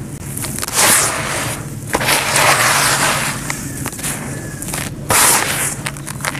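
Hands raking through and pouring handfuls of dry, dark gritty crumbs back into a tub: a crunchy, rattling trickle of grit with sharp clicks of pieces landing, swelling three times as handfuls fall.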